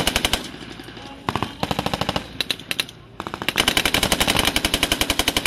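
Machine-gun fire in rapid bursts: a short burst at the start, another about a second in, a few scattered shots, then a long unbroken burst from about three seconds in.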